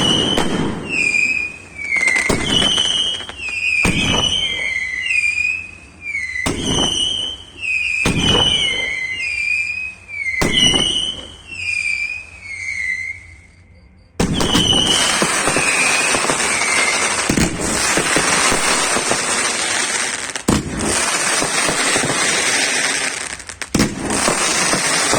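Fireworks display going off: for about the first half, a run of whistling fireworks, each a wavering whistle about a second long, mixed with sharp bangs. About halfway through it switches abruptly to a dense, continuous crackling barrage with occasional bangs.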